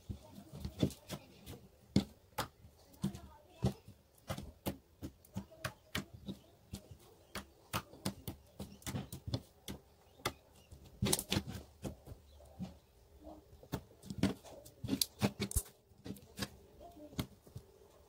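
Homemade borax slime being squished and stretched by hand, giving irregular sticky pops and clicks, several a second, with louder runs of pops a little past the middle.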